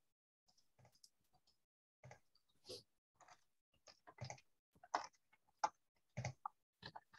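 Faint, irregular clicks and taps from a computer keyboard and mouse, about one or two a second at uneven spacing.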